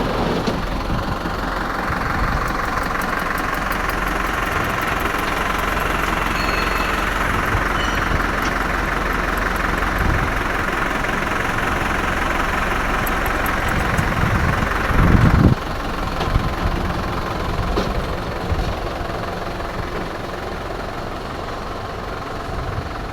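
Massey Ferguson MF4708 tractor's diesel engine running steadily, with a higher hiss-like noise over it for most of the first fifteen seconds that cuts off suddenly just after a short, louder low surge.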